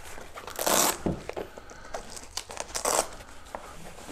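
Fabric roll-up antenna carry bag being handled and its straps pulled loose: two rasping tears, about half a second in and again near three seconds, with cloth rustling between.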